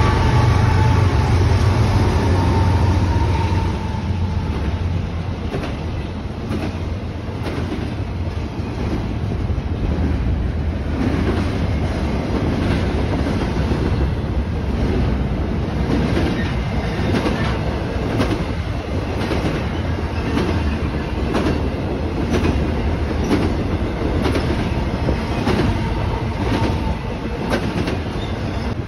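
BNSF freight train passing close by. The diesel locomotive's engine rumbles for the first few seconds, then double-stack intermodal well cars roll past with steady wheel-on-rail noise and regular clicking as the wheels cross rail joints.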